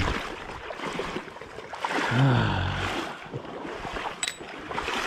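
River water splashing and running, with a short falling groan about two seconds in.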